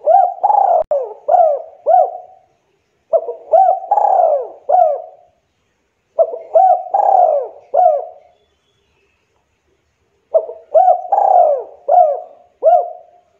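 Spotted dove (tekukur) cooing in four phrases, three to four seconds apart. Each phrase is a run of four or five coos that rise and fall in pitch.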